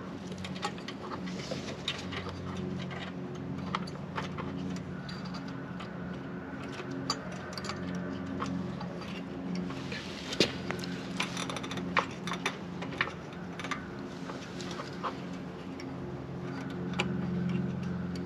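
Irregular small metallic clicks and taps of a wrench working on the throttle linkage at a riding-mower engine's carburetor, over a steady low hum.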